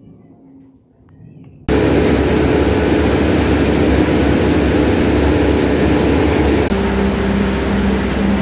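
Motorised grain-processing machine running loud and steady, a rushing noise over a constant hum, as grain pours from its chute into a bucket. It cuts in suddenly about two seconds in, and its hum shifts slightly in pitch near the end.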